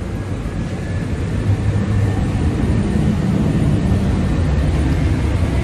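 Steady low rumble of an airliner parked at the gate, heard from the jet bridge while boarding, with a faint high whine over it; it grows slightly louder toward the aircraft door.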